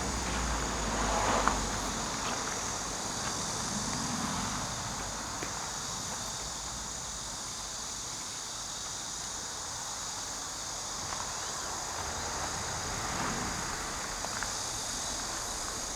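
Steady outdoor chorus of insects, a constant high-pitched trilling. A low rumble fades out in the first second or two.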